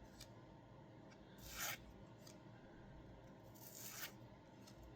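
Donruss baseball cards rubbing against each other as they are slid off the pack stack: two soft, brief swishes, otherwise near silence.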